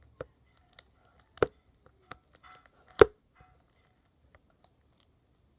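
Sticky homemade slime being worked in a small plastic container: a handful of sharp, irregular taps and pops, the loudest about three seconds in.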